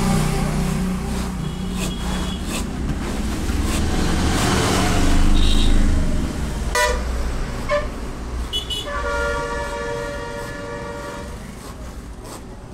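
Passing road traffic: a vehicle engine's low rumble that fades toward the end, with short horn toots around the middle and a long horn blast about nine seconds in, lasting about two seconds.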